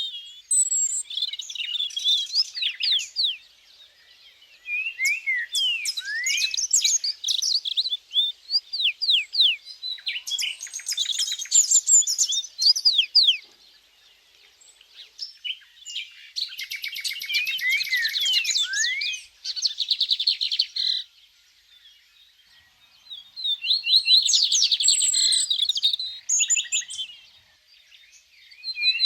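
Small songbird singing in bouts of a few seconds each: quick sweeping high chirps and fast rattling trills, with short pauses between bouts.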